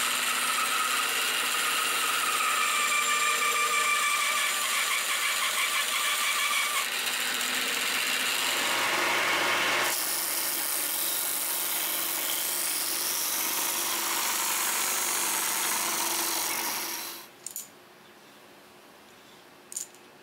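Homemade band saw running and cutting through a small wooden block for about ten seconds. Then a disc sander runs with wood pressed against it, and it stops about three seconds before the end, leaving a couple of light clicks.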